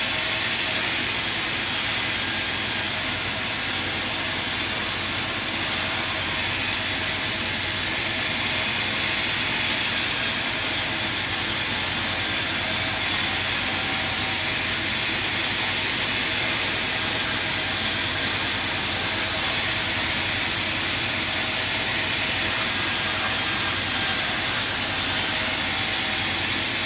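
Sawmill machine running, a steady, even hiss-like noise that holds unchanged throughout.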